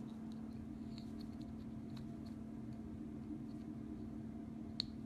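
Faint small metallic clicks and scrapes of a split ring being twisted into the punched hole of a bottle cap, with one sharper click near the end, over a steady low hum.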